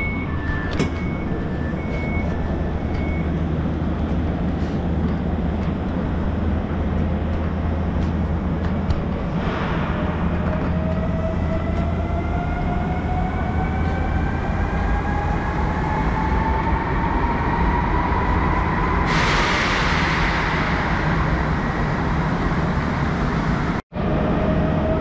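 Polregio ED72 electric multiple unit heard from inside a carriage. A two-tone door warning beep sounds for the first few seconds, then the train pulls away with a traction whine that rises slowly in pitch as it accelerates over the steady rumble of the carriage. A burst of rushing noise sweeps in about 19 seconds in.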